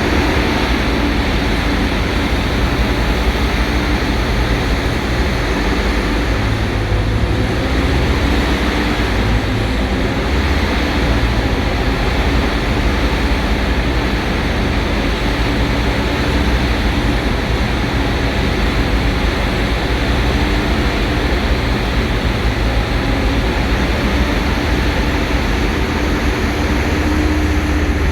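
Large hydraulic mining excavator's diesel engine running steadily, a continuous low drone with machine noise that stays level throughout.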